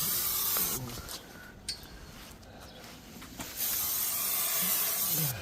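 Aerosol can of spider spray hissing in two bursts: a short one ending about a second in, and a longer one of nearly two seconds near the end.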